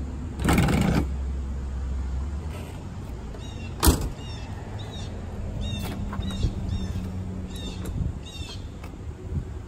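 The hood of a 1961 Corvette being opened. A brief rustling noise comes near the start, then a single sharp clack of the hood latch letting go about four seconds in, followed by a scatter of short high chirps.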